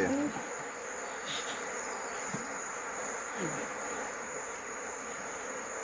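Honeybees from an opened, disturbed hive buzzing steadily, with a thin steady high-pitched tone running underneath.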